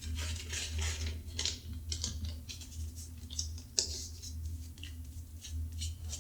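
Kinesio tape being handled and pressed down onto the skin of the arm: irregular scratchy rustling and crinkling, with one sharp click nearly four seconds in.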